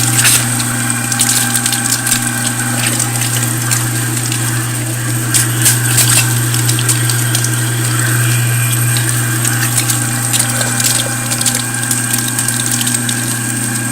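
Pro-Cut #22 electric meat grinder running steadily while grinding meat: a constant motor hum with irregular clicks and crackles throughout.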